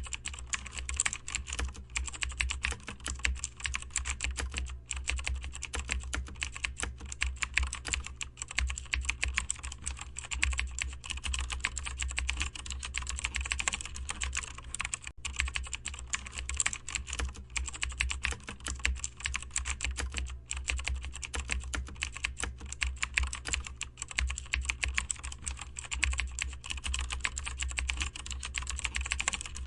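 Rapid, continuous keyboard typing: a dense run of irregular key clicks that never pauses for long, over a low steady hum.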